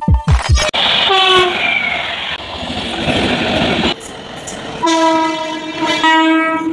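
Indian Railways WAP-7 electric locomotive hauling an express train through at speed: the steady rumble of the passing train, a short horn blast about a second in, and a long steady horn from about five seconds in. The first moment holds the last beats of electronic intro music.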